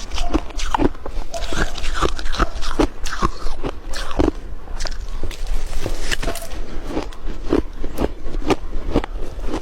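Close-up chewing and crunching of ice in the mouth: a run of sharp crunches, about two or three a second, with a short pause about halfway.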